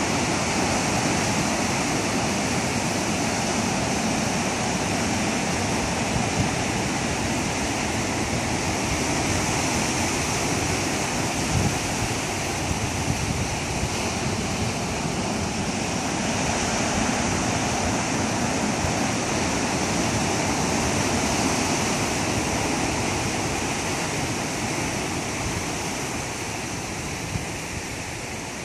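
Pacific Ocean surf breaking and washing in over a rocky, stony shore: a steady rush of waves that swells and eases a little.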